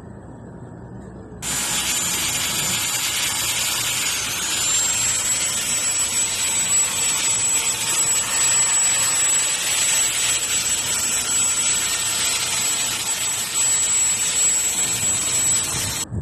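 A high-speed tool running with a steady high-pitched whine and hiss. It starts abruptly about a second and a half in and cuts off just before the end, and its pitch dips briefly once.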